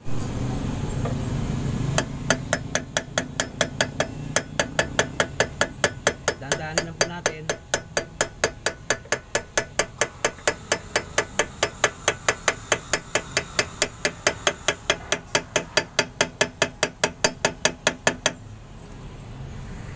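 Claw hammer striking a steel drift, driving a new ball bearing into the front wheel hub of a Bajaj RE three-wheeler. The metal-on-metal blows come steadily at about three a second, starting about two seconds in and stopping shortly before the end.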